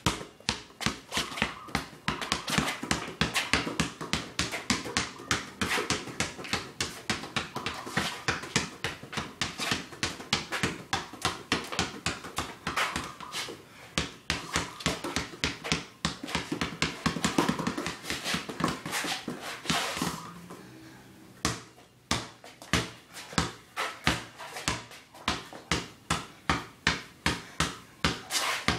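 Basketball being dribbled on concrete: fast, steady bounces several times a second, with a short pause about two-thirds of the way through before the dribbling picks up again.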